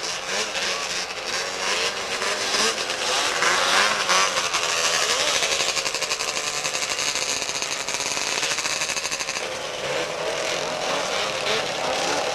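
Several two-stroke snowmobile engines running together at a drag race. Their pitches overlap and keep rising and falling as they are revved.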